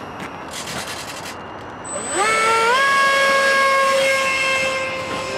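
Electric ducted fan of a STARMAX F-35 Lightning II radio-controlled model jet spooling up to full throttle about two seconds in: a whine that rises in pitch, then holds steady as the model is hand-launched and climbs away, growing slightly fainter near the end.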